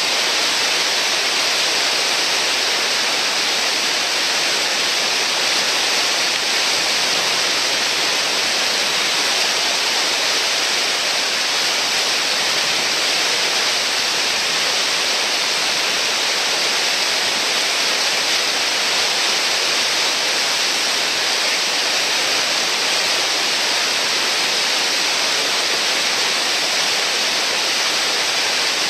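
Whitewater churning through a river hole: a loud, steady rushing with no breaks.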